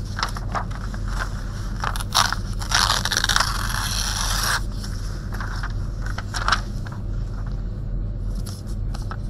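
A sheet of printer paper being torn by hand around a printed quote: a few short rips and crackles, and one longer tear of about two seconds, about three seconds in.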